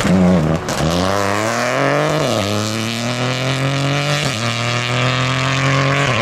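Rally car engine accelerating hard through the gears, the revs climbing and falling back at three gear changes, about half a second, two seconds and four seconds in.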